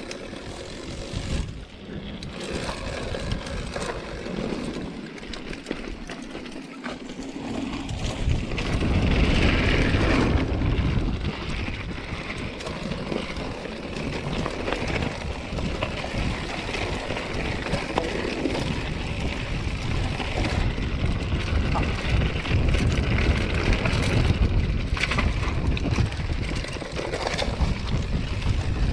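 Hardtail mountain bike descending a gravel and rocky trail: tyres crunching over loose stones, the bike rattling with frequent knocks, and wind buffeting the GoPro's microphone. It gets louder about eight seconds in and stays loud.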